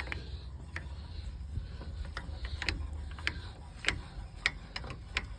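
A jack being cranked by hand to press down and break a lawn mower tire's bead, its mechanism clicking about twice a second at an uneven pace.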